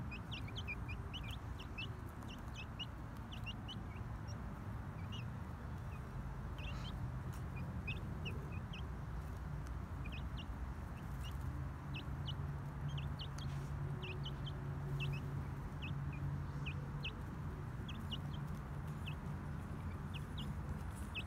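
Young chicks peeping: many short, high cheeps, several a second, over a steady low hum.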